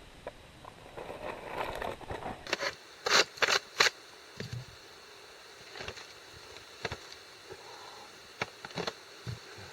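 Scraping and knocking as hot coals are raked off an aluminium baking tray in a campfire, with three sharp knocks in quick succession about three seconds in and scattered lighter clicks.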